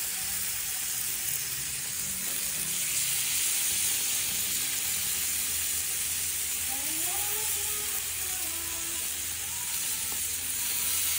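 Chicken pieces sizzling steadily on the hot cast-iron grate of a Weber Q gas grill as they are brushed with basting sauce.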